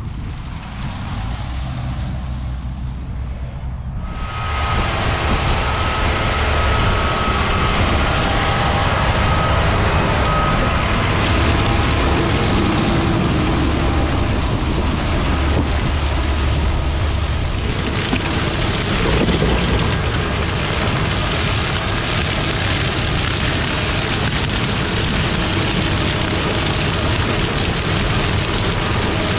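Tractor-drawn sugar beet harvesting machinery running: a low tractor engine drone under a loud, steady rushing clatter. It jumps in level about four seconds in.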